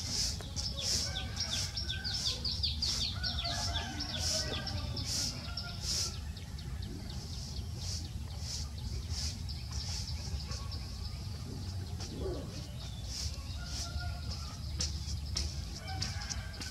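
Birds chirping: short high calls repeated about twice a second for the first six seconds, then sparser, with fainter warbling notes, over a steady low rumble of outdoor background noise.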